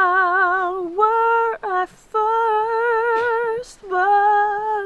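A woman singing unaccompanied: slow, long-held notes with a wavering vibrato, sung in four short phrases with brief breaths between them.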